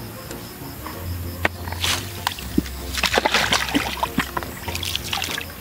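Pond water sloshing and splashing in irregular bursts as a prawn feeding tray is lowered into the water, with a few small clicks.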